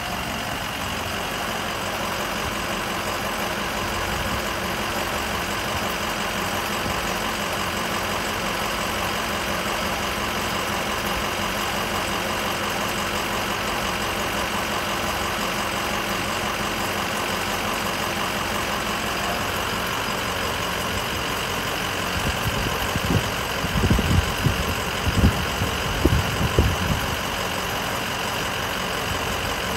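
Lifted Ford Excursion's engine idling steadily. A few irregular low thumps come in about three-quarters of the way through.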